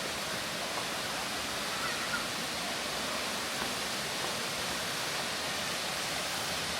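Steady rushing of Murhut Falls, a waterfall pouring into its pool.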